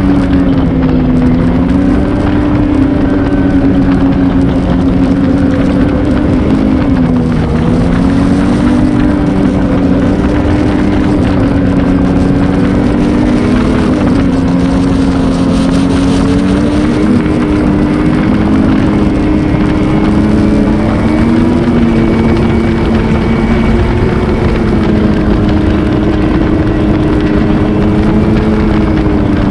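Ski-Doo Renegade XRS 850's two-stroke twin engine running at steady trail speed, the pitch easing down and back up a few times as the throttle changes, over a constant rush of wind and track noise.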